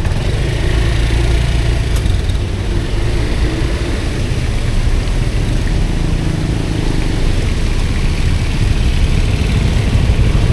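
Steady low rumble of wind buffeting an action camera's microphone while cycling in the rain, with road and rain noise mixed in.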